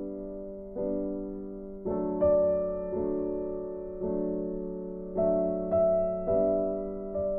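Background piano music: slow, gentle chords struck about once a second, each ringing out and fading.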